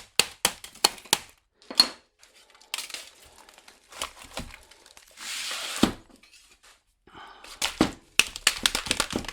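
Transformer steel laminations being knocked and pried apart with hand tools: runs of sharp metal clicks and taps, two or three a second, broken by a rough tearing noise for about a second around five seconds in.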